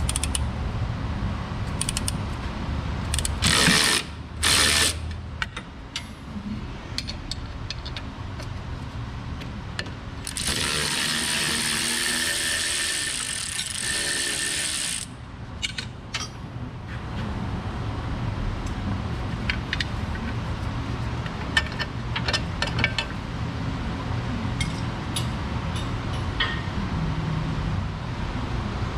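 Hand ratchet clicking as control arm bolts on a Jeep Wrangler are worked loose, with scattered ticks and clicks of tools on metal. Two short bursts of an air tool come about four seconds in, and a longer run of about four seconds near the middle is the loudest sound.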